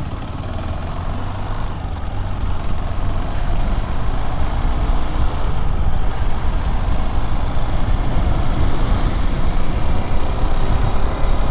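Riding noise from a KTM 390 Adventure X at road speed: its single-cylinder engine running under heavy wind rumble on the camera's microphone, with road and traffic noise. The noise grows somewhat louder over the first few seconds, and a brief hiss comes about nine seconds in.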